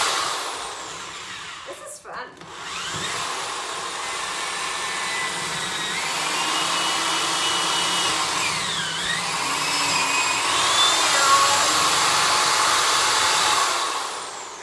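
Cordless drill boring into a solid wooden cutting board. The motor whine nearly stops about two seconds in and starts again, dips in pitch and recovers around nine seconds, and winds down near the end.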